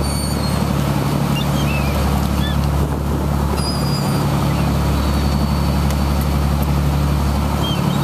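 A fishing boat's engine running steadily under way, with the rush of its wake, and a few short, faint gull calls over it.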